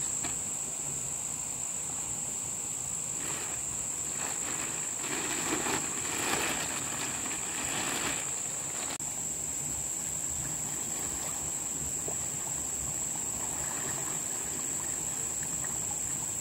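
Steady high-pitched insect drone throughout. Over it, between about three and eight seconds in, a plastic bag crinkles and rustles as a large fish is pushed into it.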